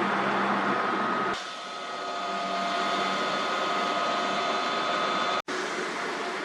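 Steady outdoor background noise, a continuous hum with a faint steady whine in it. The sound changes abruptly about a second and a half in and drops out for an instant near the end.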